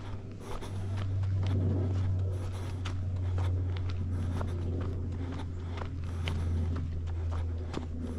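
Footsteps on a trail, a series of short crunches, over a steady low rumble that swells and eases through the middle.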